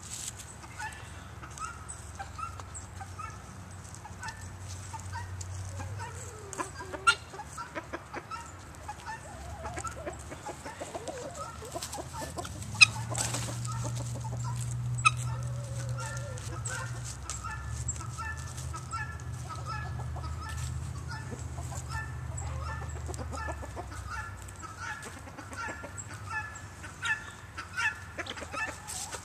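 A flock of chickens and guinea fowl clucking and calling, with a run of short repeated calls through the second half. A low steady rumble sits underneath through the middle, and a few sharp clicks stand out.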